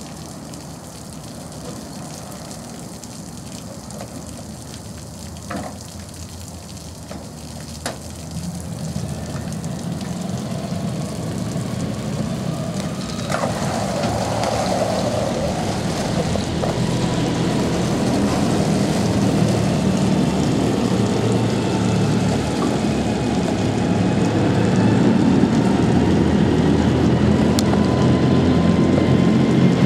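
Fire engine running with its pump engaged, the engine and pump noise growing steadily louder, with a steady whine joining in about halfway through.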